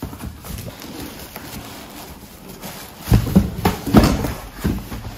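Tissue paper and cardboard rustling as a boxed toy is pulled out of a corrugated cardboard shipping carton, with heavier scraping and bumping of the box against the carton from about three seconds in.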